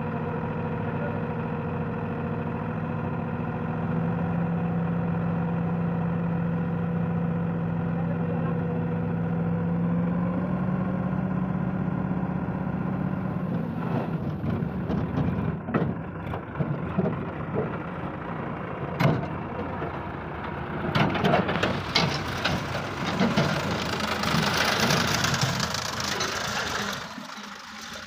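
A Sonalika tractor's diesel engine runs steadily while its trailer is hydraulically tipped, the engine note lifting slightly about ten seconds in. From about halfway through, soil and clods slide and clatter out of the tipped trailer bed, with several sharp knocks and a loud rush of tumbling earth near the end.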